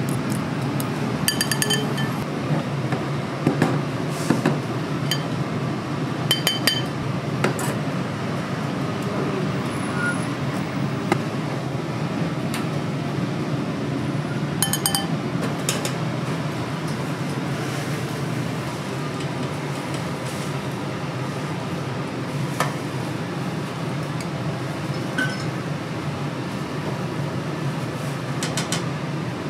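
Dishes and utensils clinking in a restaurant kitchen, with three ringing clinks of metal or glass and a scatter of lighter knocks, over a steady low hum.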